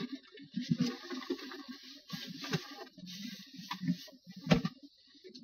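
A person clambering from the front seat into the back of a car: clothes rustling and shuffling against the seats, with scattered bumps and one sharper knock about four and a half seconds in.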